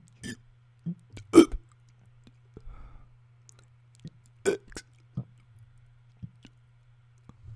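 A man forcing short, separate burps while trying to burp the letter U of the alphabet. The loudest comes about a second and a half in and another about four and a half seconds in, with smaller throat clicks and gulps between them.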